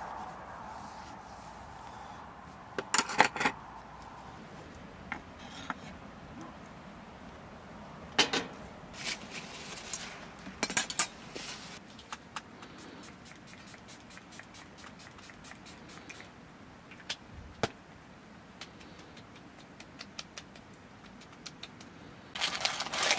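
Scattered light clinks, taps and rustles of small objects being handled, in short clusters over a faint steady background, with a denser stretch of clatter near the end.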